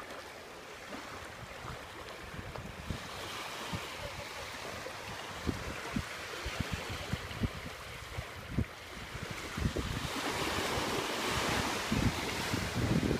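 Small sea waves washing onto the shore, with gusts of wind buffeting the microphone. The wash grows louder about ten seconds in.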